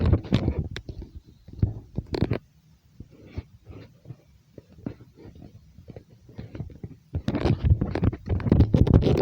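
Irregular rustling, scraping and knocking of objects being handled close to the microphone, heaviest near the start and again over the last two seconds.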